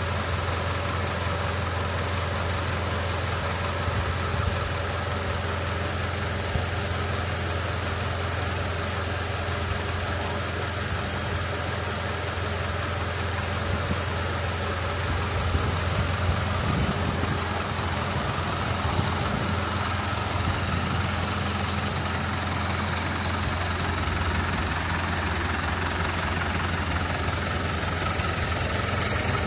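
A vehicle engine idling steadily, with a low, even hum.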